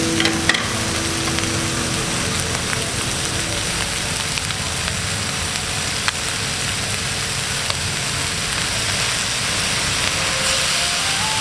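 Chicken frying in a hot pan with a steady sizzle and a few sharp clicks.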